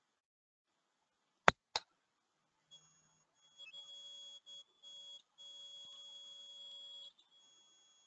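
Two sharp clicks about a quarter second apart, then a faint steady high electronic tone that breaks off a few times and lasts about three and a half seconds.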